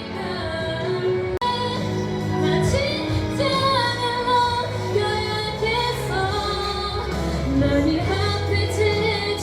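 Background pop song with a female lead vocal, briefly cutting out about a second and a half in.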